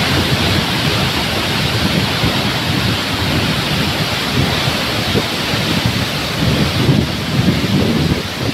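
Floodwater pouring through a dam's open spillway gates: a loud, steady rush of water with a constant deep rumble.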